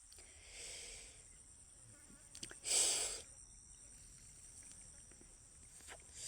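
Steady high insect chirring, with a person's breathy puffs over it: a soft one about half a second in and a louder, short one about two and a half seconds in.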